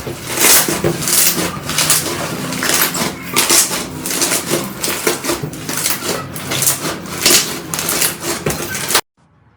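Slime being squeezed and pressed by hand: a dense, crackly squelching with louder pushes about every half second, cutting off suddenly near the end.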